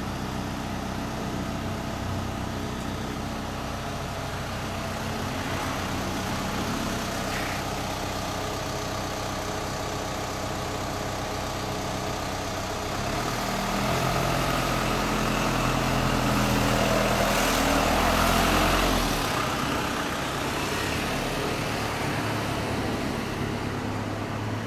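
2016 Suzuki GSX1300R Hayabusa's inline-four idling steadily through an aftermarket muffler. Past the middle a louder, deeper engine sound swells for several seconds, then settles back to the idle.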